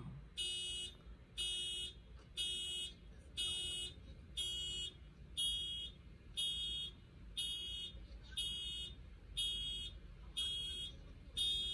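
Car alarm sounding: a steady string of electronic beeps, about one a second, each lasting about half a second.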